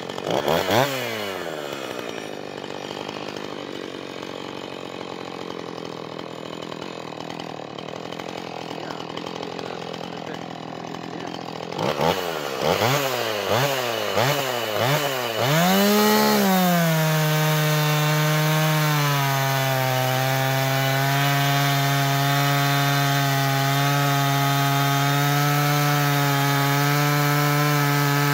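Husqvarna 445 two-stroke chainsaw with a custom-sharpened ripping chain: it drops back from high revs about half a second in and runs quietly, then is revved up and down several times and held at full throttle in a lengthwise rip cut through a log, its note sagging a little under the load of the cut.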